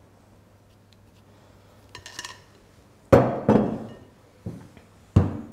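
Glass mixing bowls and a spatula being handled and set down on a kitchen worktop: a light clinking about two seconds in, then hard knocks that ring briefly, two close together just after three seconds and another near the end.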